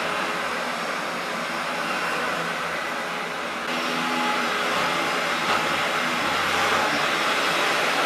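Maytag WindTunnel bagless twin-chamber upright vacuum cleaner running steadily as it is pushed over the floor. Its rushing whine gets a little louder and sharper about halfway through.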